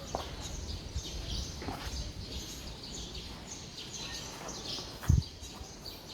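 Small birds chirping repeatedly over a low background rumble, with one dull knock about five seconds in.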